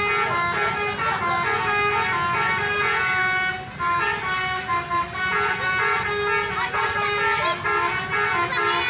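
A bus's basuri telolet horn playing a melody: a quick run of steady notes stepping up and down in pitch. A low traffic rumble runs underneath.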